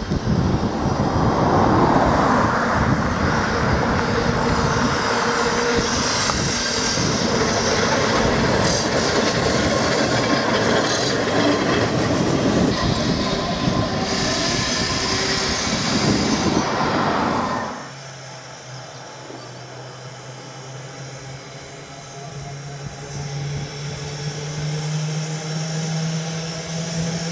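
Manx Electric Railway tram hauling a trailer and a mail van runs past close by, its wheels clattering and squealing on the rails. The noise cuts off suddenly about two-thirds of the way through, leaving a quieter steady low hum that rises slightly in pitch near the end.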